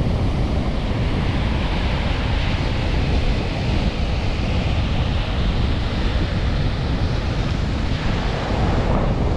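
Baltic Sea surf breaking steadily in a strong storm wind, with the wind buffeting the microphone in a heavy low rumble.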